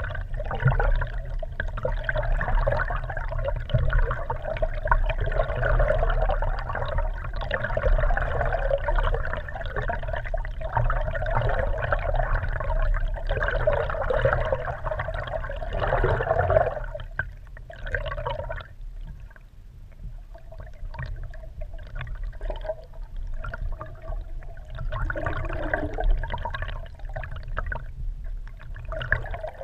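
Muffled water rushing and sloshing against an underwater GoPro housing mounted beneath a moving kayak, over a steady low rumble. The rushing eases a little past halfway, turns patchy, and swells again briefly near the end.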